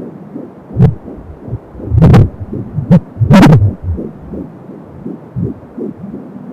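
Fetal heartbeat through an Angelsound fetal Doppler's speaker: a fast, steady whooshing pulse of about 170 beats a minute at 12 weeks, over a hiss. A few loud crackles break in during the first half.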